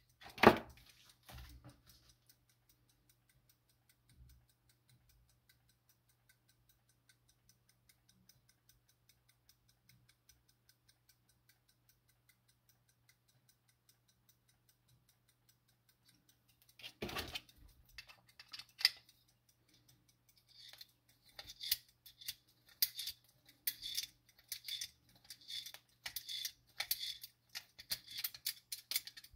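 Soviet 1-74 marine clock movement: a knock from handling, then its platform escapement ticking faintly and steadily. Past the middle come louder, irregular ratchet clicks as the mainspring is wound with a key.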